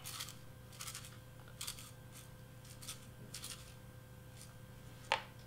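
A sequin and glitter shaker mix rattling in a small plastic jar shaken by hand, in several short bursts, with one sharp click near the end.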